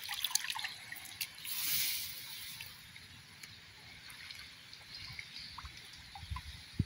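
Water dripping and trickling off a wet cast net as it is lifted out of a river, with a short splashing rush of water about a second and a half in.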